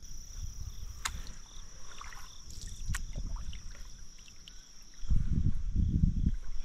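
Kayak paddle strokes: the blade dips and splashes, and water sloshes against the hull, loudest from about five seconds in. There are two light knocks early on, and a steady high-pitched insect drone runs underneath.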